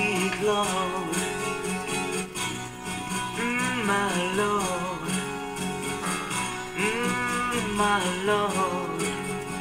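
A vinyl record playing on an RFT Ziphona Rubin 523 record player: a pop song's strummed acoustic guitars, with a gliding melody line rising and falling twice.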